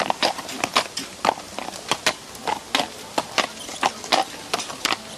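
Hooves of a walking draft horse clopping on asphalt, mixed with the clanking and rattling of the metal shafts and the wheeled haymaking implement it pulls: a steady run of sharp, uneven knocks, several a second.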